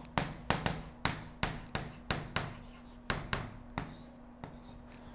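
Chalk tapping and scraping on a blackboard as a word is written: a quick run of about a dozen short, sharp taps over roughly four seconds that then stops, over a faint steady hum.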